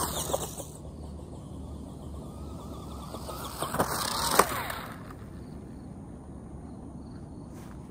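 Tamiya Grasshopper II RC buggy's 23T electric motor and gears whining as the buggy speeds past on grass, falling in pitch and fading. About four seconds in it whines loudly again as it comes back close, with a sharp knock as it tumbles over, then quietens.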